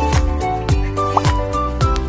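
Background music with a drum beat and a melody.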